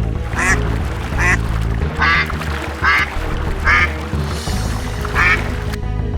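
About six short quacking calls, evenly spaced, over steady background music in a cartoon soundtrack.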